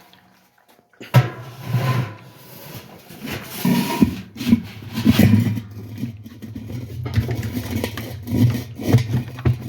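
Washer drum of a Whirlpool top-load washing machine being worked down into the outer tub, rubbing, scraping and knocking irregularly as it is seated. About a second in the handling noise starts, and a low hum sits underneath from about halfway.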